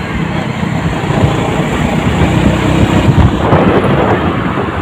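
Loud, steady wind noise buffeting the microphone of a phone carried on a moving motorcycle, with the motorcycle and road noise underneath.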